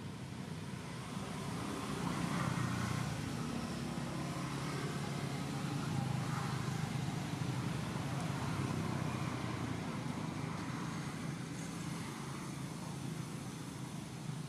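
Low rumble of a motor vehicle engine running nearby, swelling about two seconds in and easing off slowly near the end.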